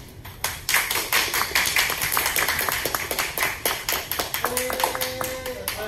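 A small group of people clapping in quick, irregular claps, with a voice calling out briefly near the end.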